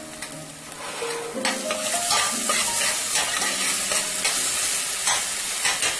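Mashed garlic sizzling in hot vegetable oil in a stainless steel saucepan, with a spoon stirring and scraping against the pan. The sizzle swells about a second in and the scraping strokes start soon after.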